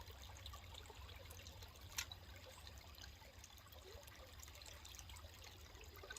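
Faint trickle of running water from a small current, with one sharp click about two seconds in.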